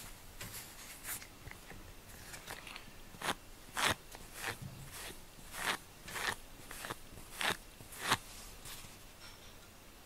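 Brush strokes through a cat's fur: about a dozen short, scratchy strokes at an irregular pace of roughly one or two a second.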